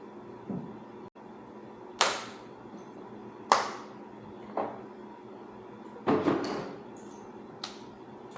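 Sharp metallic clanks and knocks, about five separate strikes with short ringing, as metal tools and motorcycle clutch parts are handled and set down during a clutch teardown. A faint steady hum runs underneath.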